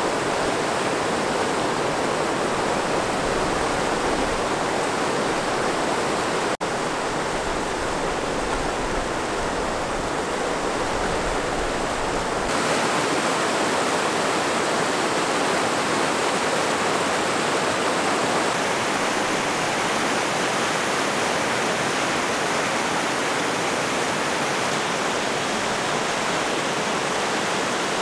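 Fast mountain creek rushing over rocks in whitewater, a steady, full wash of water noise with a momentary break about six seconds in.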